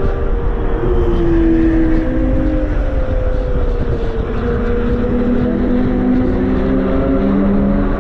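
Porsche Boxster S (987.2) 3.4-litre flat-six running at speed. Its pitch eases down through the middle and settles lower in the second half, over a steady low road and wind rumble.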